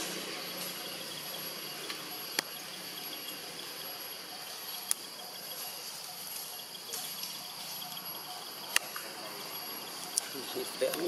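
Steady insect chorus of crickets or cicadas, a continuous high-pitched buzz, with a few sharp isolated clicks.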